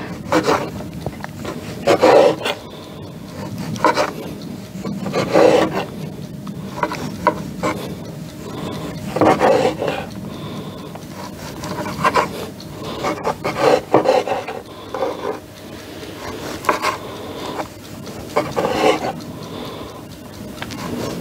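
Pampered Chef bread knife sawing through sponge cake on a wooden cutting board: repeated sawing strokes every second or two, with the blade now and then knocking on the board.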